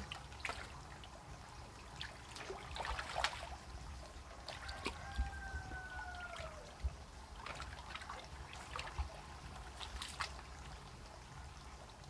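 Shallow pond water splashing and trickling in scattered short strokes as hands move through it inside a net enclosure. A faint drawn-out tone with a slight downward slide sounds in the middle.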